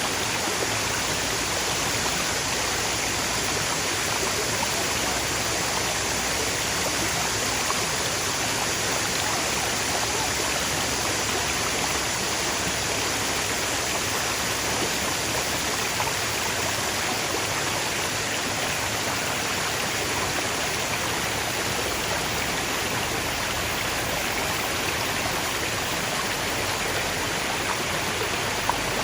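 Clear water flowing steadily, an unbroken even splashing hiss like a stream or small cascade.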